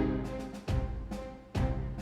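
Background music with a strong, regular beat: deep pitched chords struck about once every 0.8 seconds, each fading before the next.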